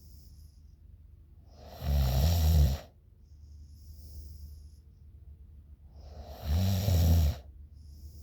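A sleeping woman snoring: two loud, rumbling snores about four and a half seconds apart, with soft, hissing breaths in between.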